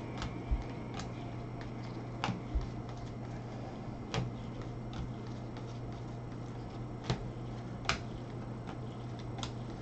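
Baseball cards being flipped one at a time through a stack in gloved hands: sharp, irregular clicks about once a second, over a steady low hum.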